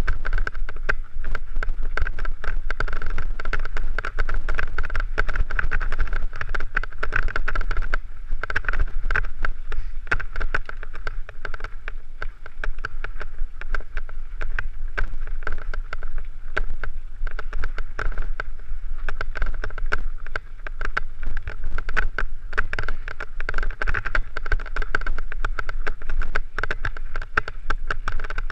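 Mountain bike ridden over a rough, stony dirt trail, heard from a helmet camera: a constant rumble of wind on the microphone, a dense clatter of knocks as the bike jolts over stones, and a steady high whir.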